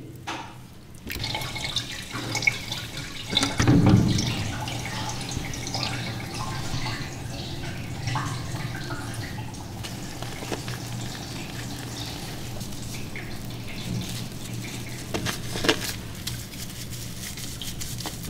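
Water running in a grooming tub and wet rubbing as shampoo lather is worked into a cat's fur by hand, with a louder low thump about four seconds in.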